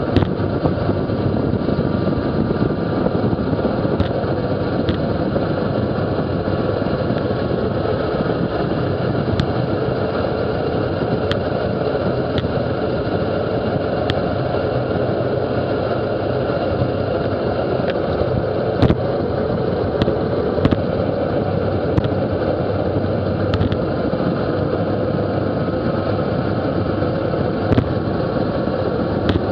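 Steady rush of wind over the microphone of a camera on a road bike descending at about 40 mph, with scattered sharp clicks.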